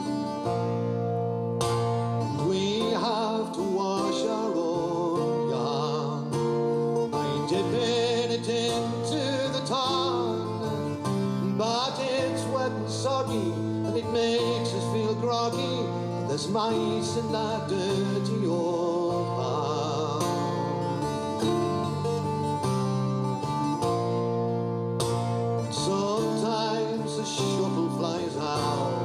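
A man singing a folk song live to his own plucked acoustic string accompaniment.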